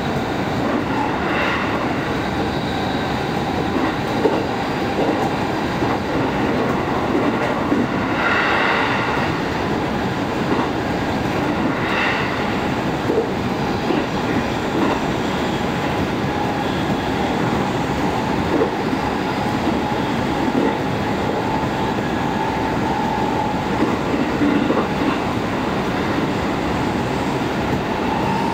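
Passenger train running at speed, heard from inside the car: a steady noise of wheels on rails, with a few brief louder moments about a third of the way in and a faint steady whine in the second half.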